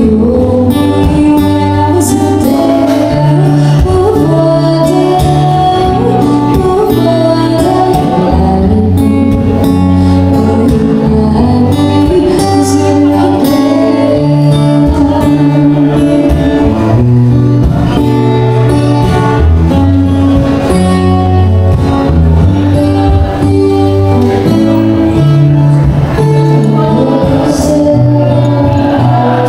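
Live vocals with acoustic guitar: a woman singing a song over acoustic guitar accompaniment, continuous throughout.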